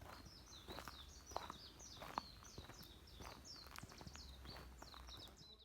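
A small songbird singing a fast, unbroken run of high twittering chirps, faint, with a few light knocks now and then and a low steady rumble underneath.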